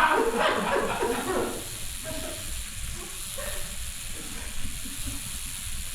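A voice or music tails off about a second and a half in, leaving a steady faint hiss with a low rumble underneath.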